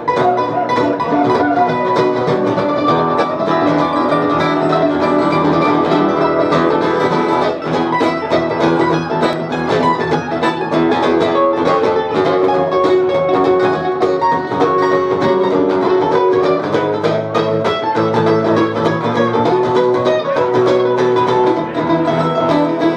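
Acoustic guitar and mandolin playing a song together live, with steady strumming under quick plucked mandolin notes.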